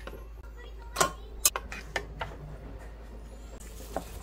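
Long metal tongs clicking and tapping against a wooden cutting board and boiled pork. There are a few sharp clicks spaced about half a second to a second apart, then a knife knocks on the board near the end, over a steady low hum.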